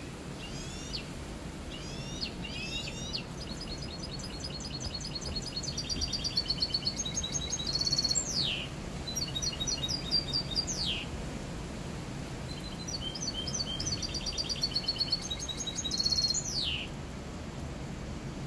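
Caged mixto, a canary-hybrid finch, singing long twittering phrases of fast trills and falling whistled notes, sung clean, with a short pause in the middle. A steady low background hum runs underneath.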